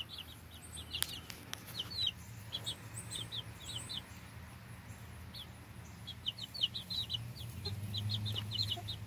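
Young chicks, a little under three weeks old, peeping: many short, high peeps in quick runs, with a lull about halfway.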